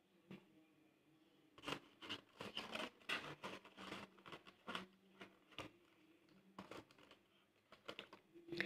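Faint paper rustles and light taps as a folded paper envelope is handled and pushed into a paper-covered tube letterbox, in a run of short sounds with a few more near the end.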